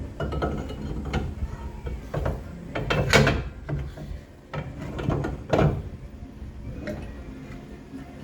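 Workshop handling noises: irregular clunks, knocks and scrapes of metal parts being moved and worked on. The loudest knocks come about three seconds in and again about five and a half seconds in.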